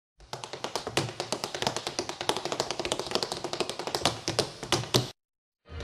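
Rapid, irregular tapping clicks, many a second, starting and stopping abruptly.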